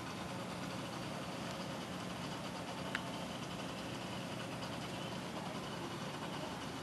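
Steady hum and hiss of a reef aquarium's running equipment: pumps and moving water. A single sharp click sounds about three seconds in.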